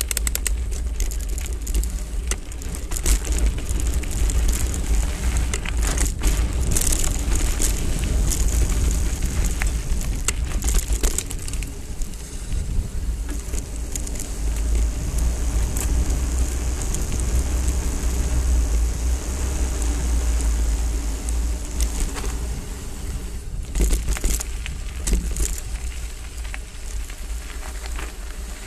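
Mountain bike riding on a gravel dirt track: a steady rumble of wind on the microphone over tyres crunching on grit, with sharp clatters and rattles of the hardtail bike over bumps, heaviest about six seconds in, around ten to eleven seconds, and near twenty-four seconds.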